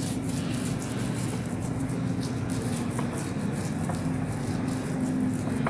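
Butter knife spreading butter across a paratha in soft, irregular scraping strokes, over a steady low hum.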